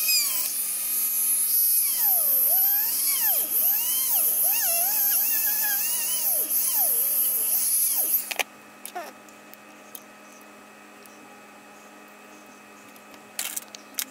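Dremel rotary tool spinning at high speed with a small ball mill bit, grinding out the rod-tip eyelet to clear the old tip that would not melt out. The high whine dips and wavers in pitch as the bit bites, then cuts off about eight seconds in.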